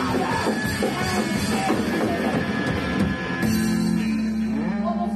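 Punk band playing loud with drums and distorted guitar. About three seconds in, the drumming stops and a held guitar chord rings on, with a note sliding in pitch.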